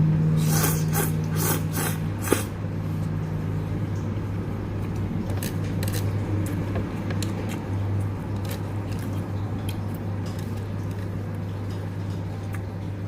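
A quick run of short slurps from soba noodles being eaten, over a steady low hum. Fainter slurps or sniffs come later.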